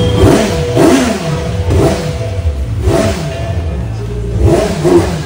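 Kawasaki Z900's inline-four engine revved repeatedly in short throttle blips, the engine note rising and falling about six times over a steady idle.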